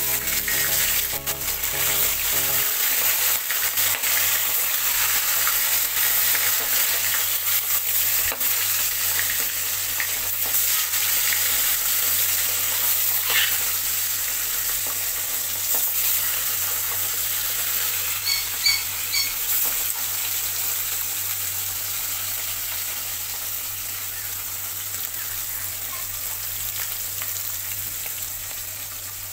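Bata fish frying in hot soybean oil in an aluminium kadai: a steady, dense sizzle that slowly softens toward the end.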